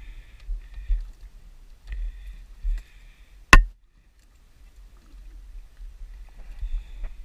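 Water and wind rumbling low against a small fishing boat's hull, with a spinning reel's crank whirring in short spells near the start, around two to three seconds in and again near the end. One sharp click about three and a half seconds in is the loudest sound.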